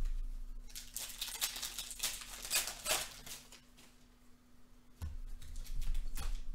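Aficionado soccer trading cards being handled and set down on a glass tabletop: a string of light taps, slides and rustles, with a short lull in the middle. A faint steady hum runs underneath.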